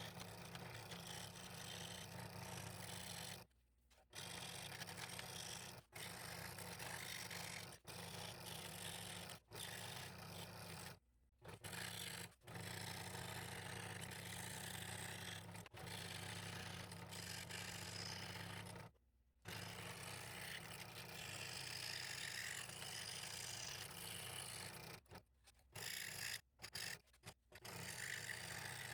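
Scroll saw with a number 3 blade cutting a piece of ash: a steady motor hum under the rasp of the reciprocating blade through the wood. The sound breaks off suddenly several times and picks up again.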